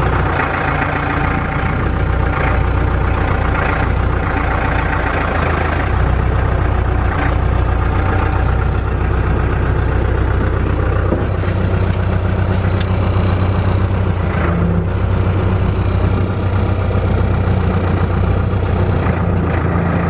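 New Holland LB75 backhoe loader's diesel engine running warm as the machine is driven into position, heard from the operator's seat. It runs steadily, its note shifting slightly a few times.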